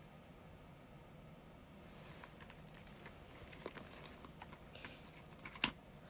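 Faint, scattered taps and small clicks of things being handled close to the microphone, with one sharper click about five and a half seconds in.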